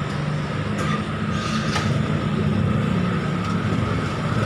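Steady low mechanical hum with a thin, steady higher whine above it, the sound of a running motor.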